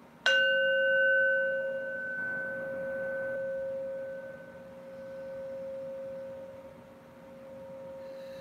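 A hand-held brass Tibetan singing bowl struck once with a wooden striker, ringing with a low hum and a couple of higher overtones that die away over several seconds while the loudness slowly swells and ebbs.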